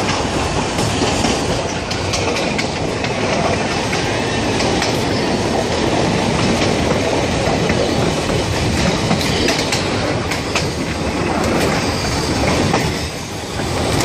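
Streetcar 6119 running along the track, its wheels clattering over rail joints in a steady, loud rumble that eases briefly near the end.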